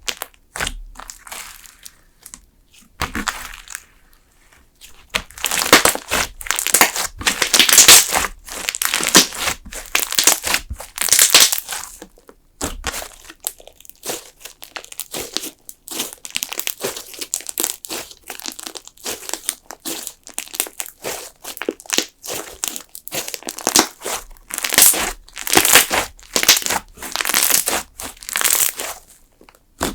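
Thick slime being squeezed and kneaded by hand, giving dense crackling and popping in repeated loud bursts with short pauses between, quieter for the first few seconds.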